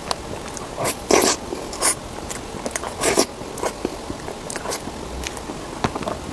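Close-miked eating: biting and chewing food, with small mouth clicks throughout and three louder, longer bites or slurps at about one, two and three seconds in.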